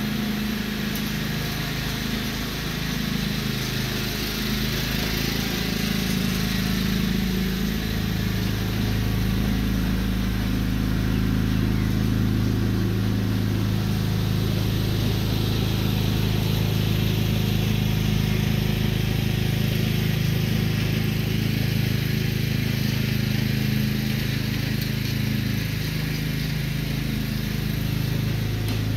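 Riding lawn tractor's engine running steadily while it tows an aerator across the lawn, a little louder from about eight seconds in.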